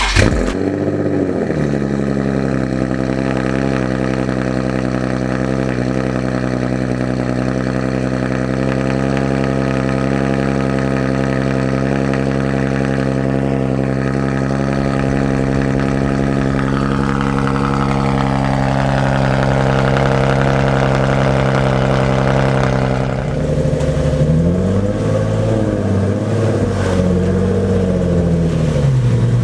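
Nissan 370Z's 3.7-litre V6 starting, with a brief flare in revs, then idling steadily. About 23 seconds in, the engine speed rises and falls several times.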